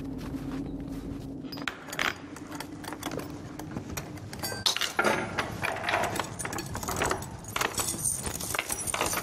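Small metal pieces, like keys or hooks on a chain, clinking and jangling as they are handled, in scattered clicks from about two seconds in and thicker in the second half. A low steady hum stops after about a second and a half.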